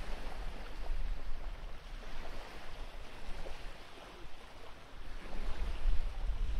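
Wind buffeting the microphone outdoors: a low, gusting rumble with a hiss over it, easing off in the middle and picking up again near the end.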